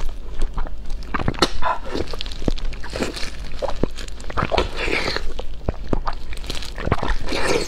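Close-up eating sounds of a person biting and chewing food: wet chewing and lip smacks with many sharp clicks and an occasional crunch.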